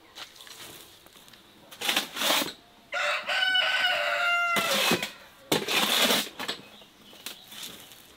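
A long-handled tool scrapes and pushes loose soil across a brick oven floor in rough strokes. About three seconds in, a rooster crows once for about a second and a half.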